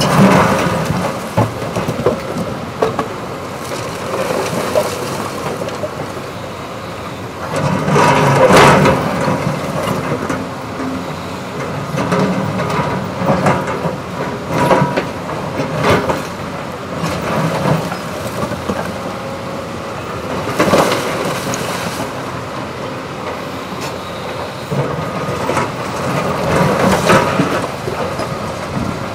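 Cat 329E hydraulic excavator running under load as its bucket digs and scrapes through broken concrete rubble, with several loud clattering crashes of concrete chunks.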